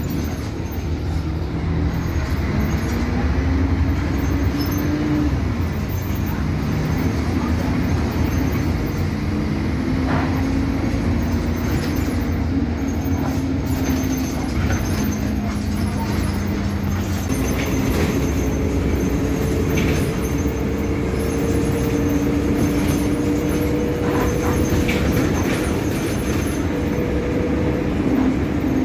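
Mercedes-Benz O-500MA BlueTec 5 articulated bus under way: a steady low engine rumble with whining drivetrain tones that rise and step in pitch as the bus changes speed, a higher whine coming in a little over halfway through.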